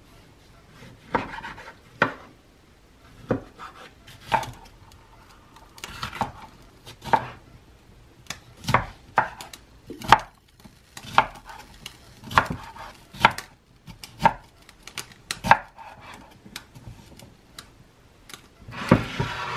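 Chef's knife chopping red bell pepper on a wooden cutting board: uneven, sharp knocks of the blade hitting the board, about one or two a second.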